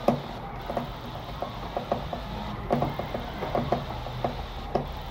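Screwdriver tightening a cable's terminal screw on a circuit breaker: a run of irregular small clicks and knocks as the cable is clamped in.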